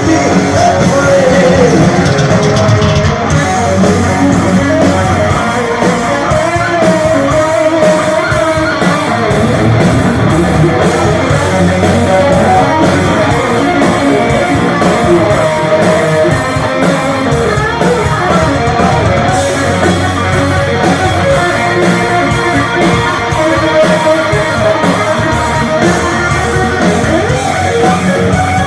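Heavy metal band playing live, with electric guitars to the fore over bass and drums.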